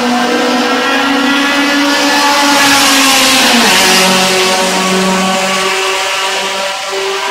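A car driven hard on a race circuit passes close by: its engine note and rushing noise swell to a peak about three and a half seconds in, where the engine note drops in pitch as it goes past, then fade away.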